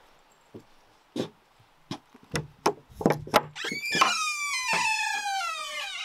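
Cabin door being unlocked and opened: a run of sharp clicks and knocks from the lock and latch, then the door hinge creaking loudly for a couple of seconds, its pitch falling.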